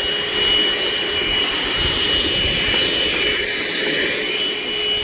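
Vacuum cleaner running steadily and loudly: a high motor whine over a strong rush of air.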